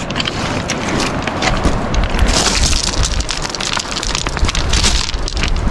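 Footsteps crunching and scraping on loose stones and gravel on a steep scree descent, a dense run of crackling, with wind rumbling on the microphone underneath.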